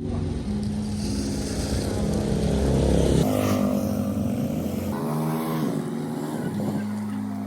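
Electronic background music: held synth notes that shift in steps, with swooping pitch glides about three and five seconds in.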